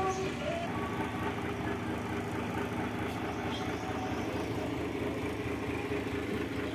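An engine running steadily, with an even, unchanging sound.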